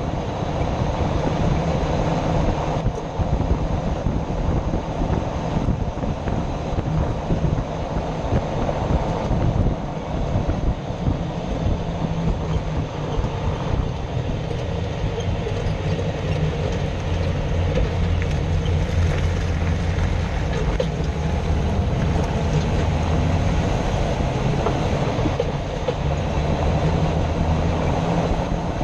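Jeep Wrangler JK heard from a camera mounted underneath while moving: a steady, loud rumble of road and drivetrain noise with a grinding noise from under the vehicle.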